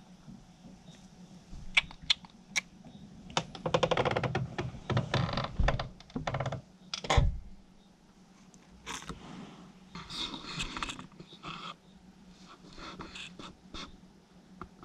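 Raccoon eating, chewing with bursts of quick, crisp crunching clicks. One louder knock comes about seven seconds in, over a faint steady hum.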